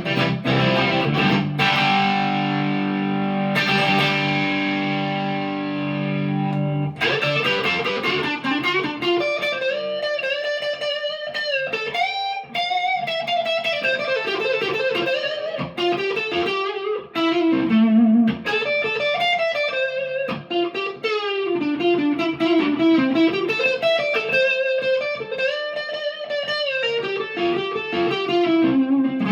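PRS McCarty 594 Hollowbody II electric guitar played through a Marshall DSL40C amp. A chord rings out, struck again after a few seconds, then single-note lead lines run through the rest.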